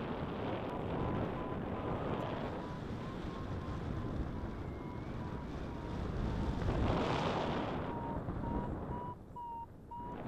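Airflow buffeting the microphone of a paraglider in flight, with a variometer beeping in a quick, steady series of short tones, its climb signal in a thermal. The wind eases for a moment near the end and the beeps come through more clearly.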